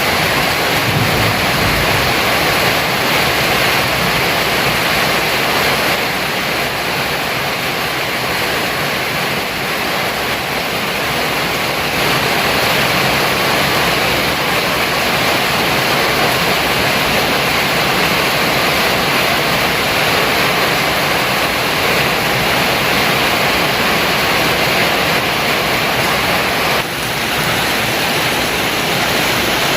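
Heavy rain pouring down steadily, a dense even hiss with a brief dip in level near the end.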